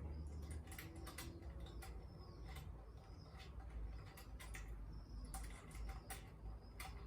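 Irregular small metallic clicks and taps of a star-head Allen key working the screws of a grill-gate smart lock.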